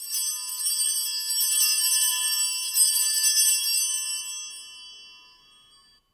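Altar bells rung at the elevation of the consecrated host: many high ringing tones that start suddenly and are shaken for about four seconds, then die away near the end.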